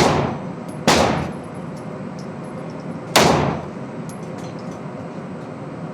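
Three single gunshots, the first two about a second apart and the third about two seconds later, each with a short echoing tail.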